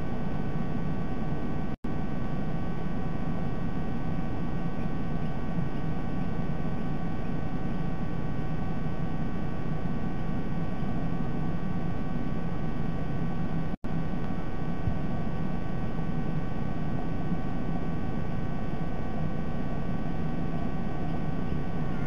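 Steady background noise from a nest camera's outdoor microphone: a hiss and low rumble with faint steady electrical whine tones over it. The sound cuts out for an instant about two seconds in and again about fourteen seconds in, as dropouts in the stream.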